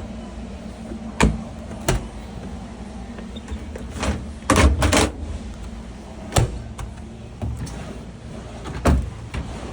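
Knocks and clunks of a top-load display washing machine being opened and handled, about eight in all with a quick cluster of three near the middle, over a steady low hum.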